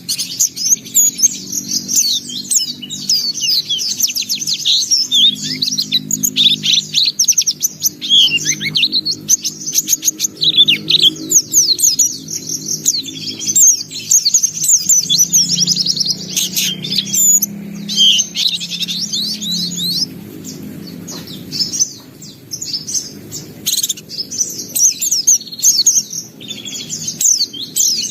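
A white-eye (pleci) singing vigorously: a long, fast, high twittering song of rapid chirps and trills, strung with varied learned phrases. The song thins to sparser calls in a few stretches, most plainly toward the end.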